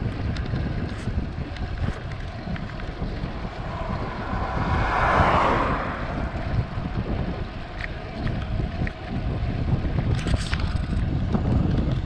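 Wind buffeting the microphone of a camera riding on a moving bicycle: a steady, gusty low rumble, with a louder rushing swell about five seconds in.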